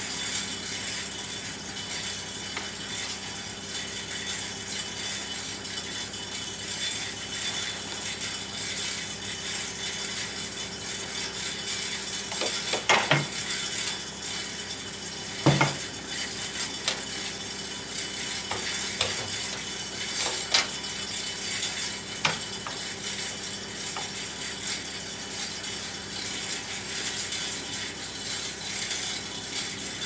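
Metal clinks and knocks from coupling a wood chipper's trailer drawbar to a tow hitch, a few sharp ones loudest near the middle, over a steady background hiss and faint hum.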